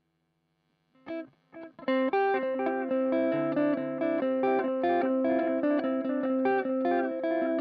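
Electric guitar, a Strat-style copy, played through a MiMiDi mini delay pedal, its notes repeating as echoes. After about a second of silence come a few single plucked notes, then steady picked notes from about two seconds in that overlap and ring on.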